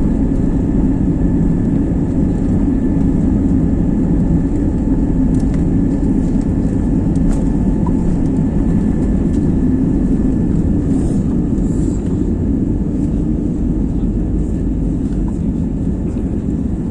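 Airbus A320 heard from inside the passenger cabin during takeoff: a loud, steady, deep noise of the jet engines and airflow, with no change in level.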